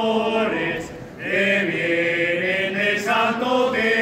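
Men singing a slow traditional Christmas shepherds' song in long held notes, with a short pause about a second in before the next phrase.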